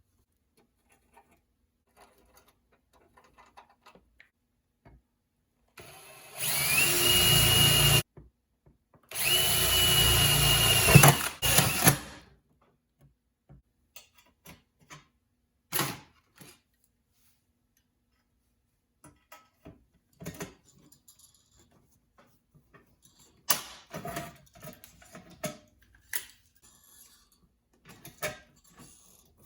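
Electric drill run twice, first for about two seconds and then for about three, with a high whine that climbs as it spins up, boring a small hole for an indicator light. Scattered clicks and handling knocks follow.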